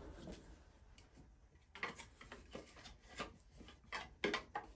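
Faint handling sounds of a plastic Starlink Gen 3 router wall mount and router being moved and picked up: scattered light clicks, knocks and rubbing, the loudest knocks about four seconds in.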